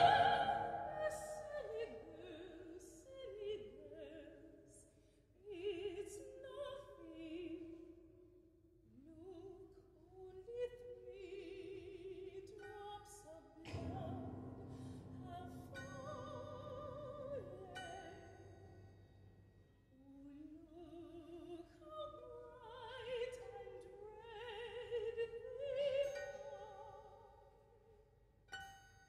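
A woman singing operatic phrases with vibrato, separated by short pauses, over sparse, quiet accompaniment.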